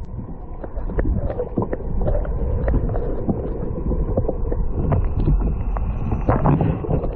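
Muffled water noise picked up by a camera held under the sea surface: a steady low rumble with irregular clicks and knocks.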